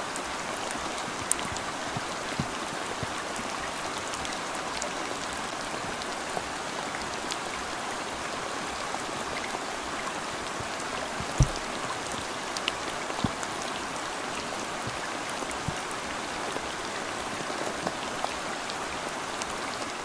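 Rain falling on the water of a fish pond: a steady hiss of drops, with a few louder single drops standing out, the loudest about eleven seconds in.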